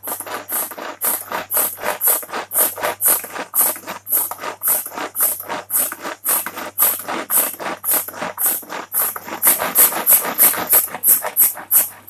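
Manual pull-cord food chopper pulled over and over, about three rapid strokes a second, rattling as its blades crush tomatoes into puree. It gets louder near the end.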